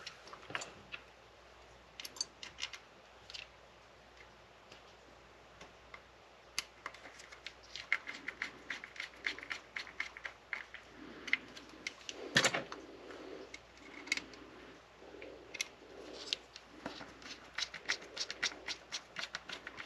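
Small scattered clicks, ticks and light scrapes of a model locomotive's body shell being handled and fitted back onto its chassis, with one louder click about twelve seconds in.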